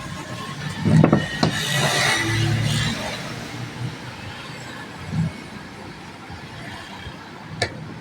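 Workbench handling noise: a few sharp knocks and clicks with a stretch of rustling and scraping, as tools or parts of an angle grinder are handled.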